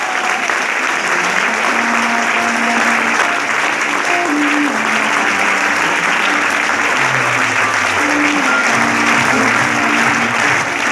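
A crowd applauding steadily over background music, a melody of held notes.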